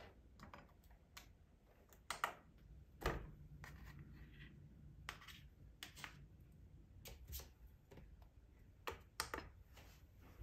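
Faint clinks and taps from a glass mixing bowl set on a metal digital kitchen scale and a plastic tub as cream cheese is dropped into the bowl. A scattering of light clicks, the loudest about three seconds in.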